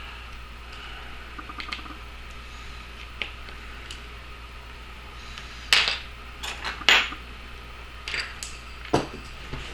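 Small metal tools and parts clicking and tapping while a phone's tiny screws are worked with a screwdriver: a few faint ticks, then several sharp clicks over the second half.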